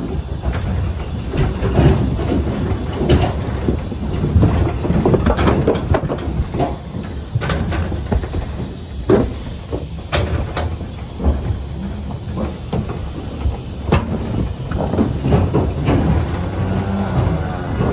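Irregular metallic knocks and clanks over a steady low rumble.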